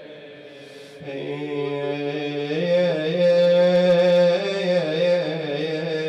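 A man's solo voice chanting a Shia mourning lament (na'i), drawing out long wavering melismatic notes without clear words. The voice is low for about the first second, then swells into a loud held line.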